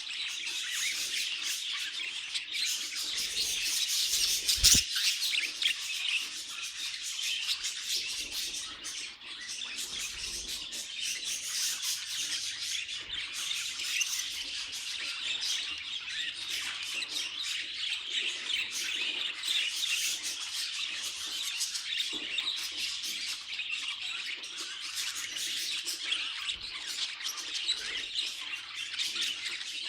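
Pet budgerigars chattering continuously in a dense stream of chirps, warbles and squawks. A brief thump comes about five seconds in.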